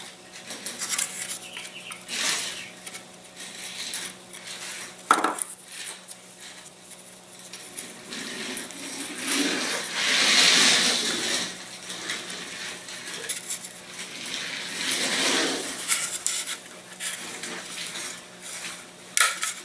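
Light laser-cut balsa and plywood model-kit parts clicking and rattling as they are handled and fitted on a workbench, with scattered small knocks and a brief rustling hiss about halfway through.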